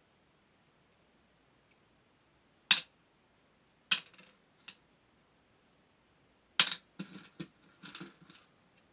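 Sharp clicks and clacks of a mini desk fan's parts being handled and fitted during reassembly: single knocks about three and four seconds in, then a quick run of clatter near the end.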